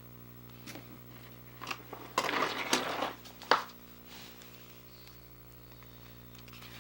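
Handling noises of small objects being moved: a few light clicks, a rustling scrape around two to three seconds in, and a sharp click just after, over a steady low electrical hum.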